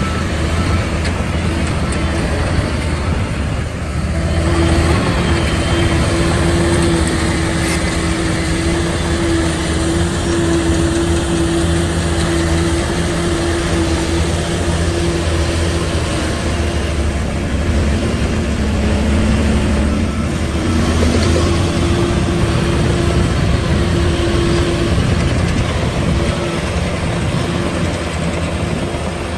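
Heavy diesel construction machinery running: a steady low engine drone with a held higher whine through most of the stretch.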